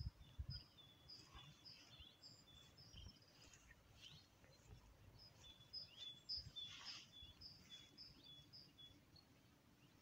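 Faint outdoor birdsong: a small bird repeating a quick two-pitch phrase, high note then lower note, in two runs with a pause of about two seconds between them. A couple of low bumps at the very start.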